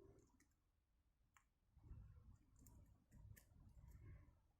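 Faint, light clicks of small metal tools and lock parts being handled while pins are worked out of a Keso Omega dimple lock, a few separate ticks over low handling rumble.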